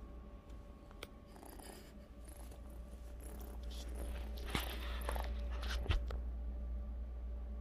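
Rustling and scuffing with a few sharp clicks as a baby ring-tailed lemur clambers over a man and brushes against the phone, over a steady low hum.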